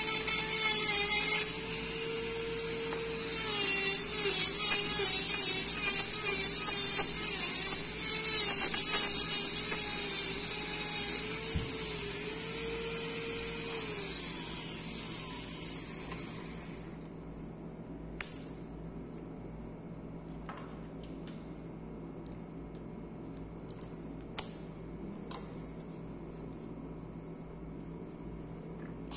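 Dental-lab micromotor handpiece with an acrylic trimming bur grinding the acrylic plate of an upper orthodontic retainer, its motor whine wavering in pitch under load. The grinding stops about eleven seconds in and the motor winds down over the next few seconds, leaving quiet with a few faint clicks.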